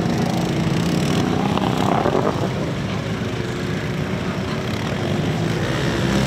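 Off-road vehicle engine running steadily under load in mud, with a short rise in pitch about two seconds in.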